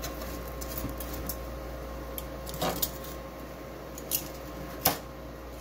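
Metal tongs clicking and scraping against the wire-mesh rack of an air fryer oven as breaded pork cutlets are moved around. There are a few sharp clicks, the loudest near the end, over a steady hum.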